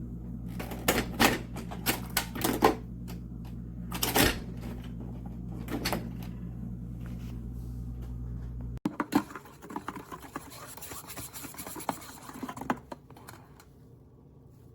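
Coffee machine running with a steady low hum and scattered clicks and knocks. The hum cuts off suddenly about nine seconds in, and a few seconds of crackling and small clicks follow before it goes quiet.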